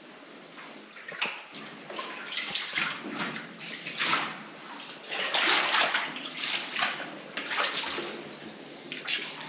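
Irregular splashing and sloshing of footsteps wading through shallow water, a noisy burst every second or so.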